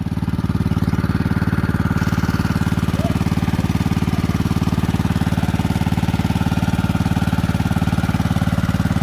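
Small engine of a water pump running steadily with a fast, even putter while the pond is pumped down.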